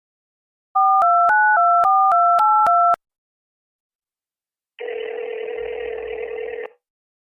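Phone keypad touch tones (DTMF) as a number is dialled: about eight quick two-pitch beeps in a row, with a click between each. A couple of seconds later comes one ring of the ringback tone, a buzzy tone about two seconds long, heard while the call waits to be answered.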